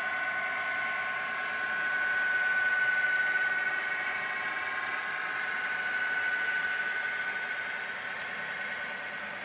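Model Class 66 diesel locomotive running past with a train of wagons on a model railway: a steady high whine over a rushing rolling noise, loudest two to three seconds in as the locomotive passes closest.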